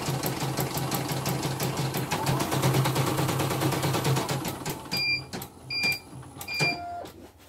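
CNY computerised embroidery machine stitching at speed with rapid, even needle strokes. About four and a half seconds in it stops as the design's last stitch is reached and gives three short high beeps, then one brief lower beep, signalling that the design is finished.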